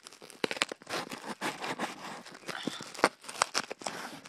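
Cardboard shipping box being opened by hand, its packing tape and flaps torn and pulled: an uneven run of rips, crackles and sharp clicks.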